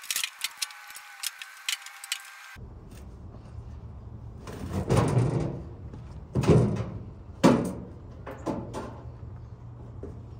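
Teardown of an old furnace's sheet-metal cabinet: a quick run of sharp metallic clicks, then, after a sudden change about two and a half seconds in, four loud scraping thuds of sheet metal sliding and knocking against sheet metal.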